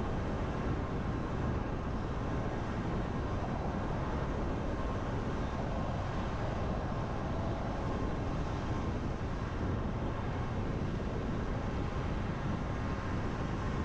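Steady driving noise of a car on a rain-wet road: tyre and road rumble with a hiss of water, even throughout.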